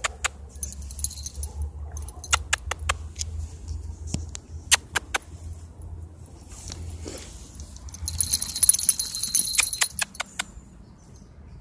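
A small bell on a Pekingese's collar clinking as the dog walks: scattered sharp single clinks, then a stretch of rapid continuous jingling about eight seconds in as the dog trots. A low steady rumble runs underneath.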